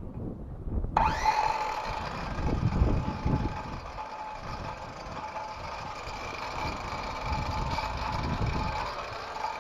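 Ridgid circular saw starting about a second in: the motor spins up with a rising whine, then runs at a steady pitch.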